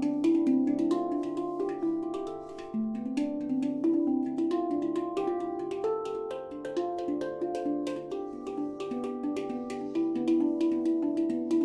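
Nitrided-steel handpan tuned to D Dorian with ten notes, played with bare hands: a quick, flowing run of ringing notes struck one after another, easing off briefly about two and a half seconds in, then picking up again.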